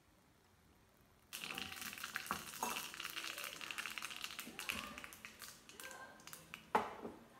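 Seeds spluttering and crackling in hot oil in a small steel pan, the tempering stage of rasam. The sizzle starts suddenly about a second in, full of sharp pops, then thins out, with one loud pop near the end.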